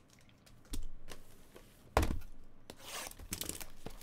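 Two dull thumps of cardboard boxes being handled on a table, the louder one about two seconds in. Near the end comes the crinkle and crackle of plastic shrink-wrap on a trading-card hobby box being handled.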